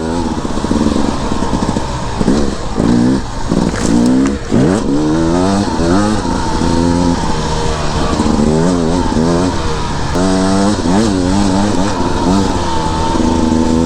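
Beta 300RR two-stroke dirt bike engine being ridden hard off-road, its revs climbing and dropping back again and again as the throttle is worked.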